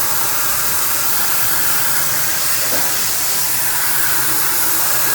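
Loud, steady rushing hiss spread evenly from low to very high pitches, with a faint low hum underneath.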